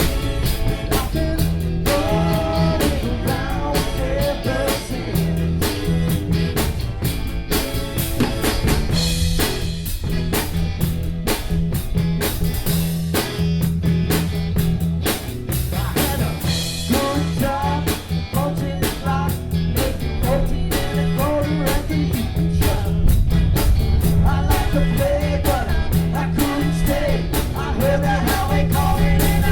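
Live rock band playing: drum kit keeping a steady beat with rimshots, bass and electric guitar, and a wavering melody line over them.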